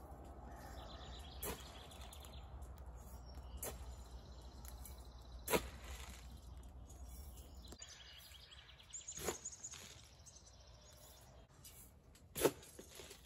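Outdoor garden ambience: birds chirp now and then over a low hum, and a few short sharp knocks sound at intervals.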